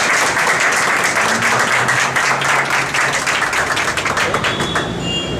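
A small group of people applauding with their hands, the clapping thinning out and dying away near the end.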